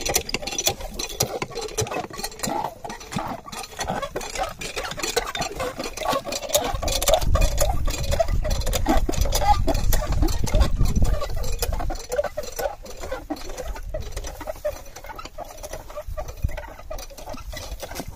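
Small engine of a field water pump running with a rapid, dense clatter. A heavier low rumble joins for several seconds in the middle.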